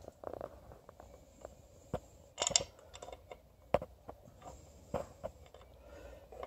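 Scattered light clicks and knocks of a motor mount bracket being fitted against a Honda V6's aluminium engine block while a bolt is started through it by hand. The loudest is a short cluster of clinks about two and a half seconds in.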